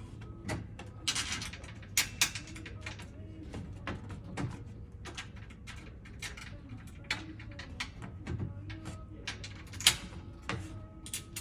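Irregular knocks, clicks and rustles of bed-frame parts being handled during assembly, the loudest knocks about two seconds in and near ten seconds in, over a low steady hum.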